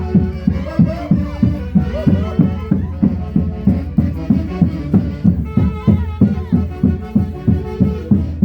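Andean folk orchestra playing Santiago festival music: a melody over a fast, steady beat.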